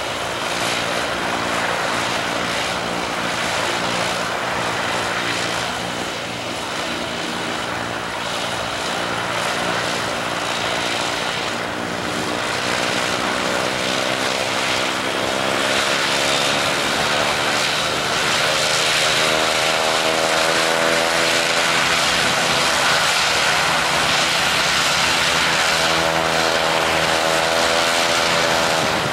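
Propeller engine of a Pipistrel Sinus motorglider on approach to land, a steady drone that slowly rises in pitch and grows louder as the aircraft comes closer, dipping in pitch near the end.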